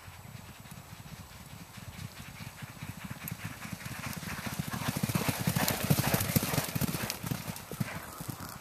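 Two racehorses galloping, a rapid drumming of hoofbeats that grows louder as they approach, peaks as they pass close by about six seconds in, then fades as they move away.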